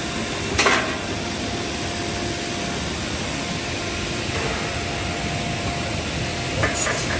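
Automatic corner-bracket cutting and drilling machine running with a steady motor hum. A short sharp noise, the loudest thing, comes just over half a second in, with a few smaller ones near the end.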